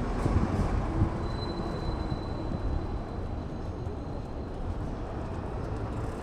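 Steady low rumble of city traffic noise during a bicycle ride, with a faint thin high whine from about a second in until past the middle.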